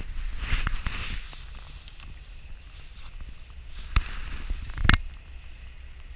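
Footsteps through wet bog grass and mud, with rustling and knocks from a handheld camera; the sharpest knocks come about four and five seconds in, over a steady low rumble.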